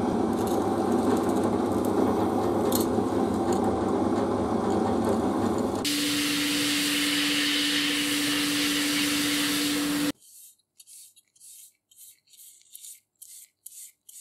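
Bench drill press running loudly as it drills into a small steel part. About six seconds in, it gives way to the hiss of a sandblasting cabinet's blast gun, with a steady hum under it, which cuts off suddenly. After that come faint, short, rhythmic strokes of a bristle paintbrush on metal.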